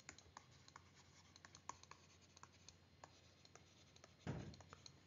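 Faint, irregular ticks and scratches of a stylus writing on a tablet screen. There is one louder dull bump about four seconds in.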